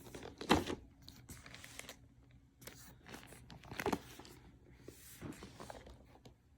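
Cardboard product box being handled: scattered rustles, scrapes and light knocks, the loudest about half a second in and near four seconds in.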